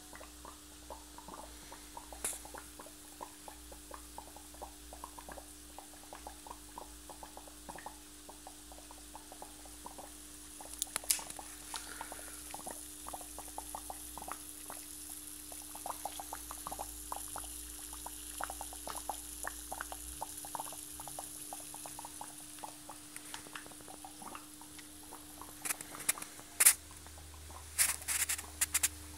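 Faint, busy crackling and popping of gas bubbles from a homemade stacked-plate water electrolysis cell and its frothing water reservoir, over a steady low hum. A few sharper clicks come around the middle and near the end.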